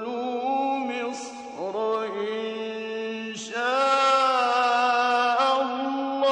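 A man's voice reciting the Quran in a melodic, chanted style, holding long ornamented notes that bend in pitch. After a short break about three and a half seconds in, it resumes on a higher, louder held note.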